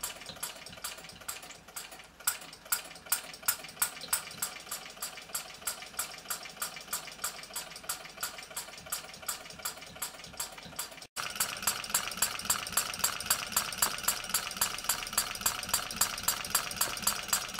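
Kerosene-fuelled four-stroke hot-bulb model engine running steadily, a regular sharp beat of about two to three strokes a second over the continuous hiss of the blow-lamp flame that keeps the hot bulb warm. Louder from about eleven seconds in.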